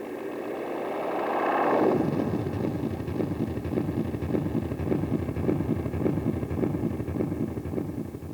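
Wampler Ethereal delay pedal with its knobs at maximum, feeding back on itself. A wash of repeats swells for about two seconds, then breaks into a fast, warbling flutter that sounds like a motor.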